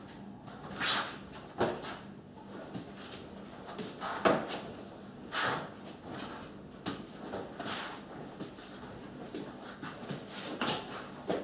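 Nunchaku swung and caught in a solo practice sequence: irregular quick swishes of the sticks through the air and sharp slaps as they are caught against the hand and body, the loudest about four seconds in.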